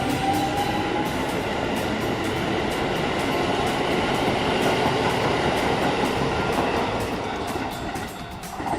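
Keisei Line electric train running, its motors whining with a rising pitch in the first second, then a steady rumble of wheels on rail that fades over the last couple of seconds.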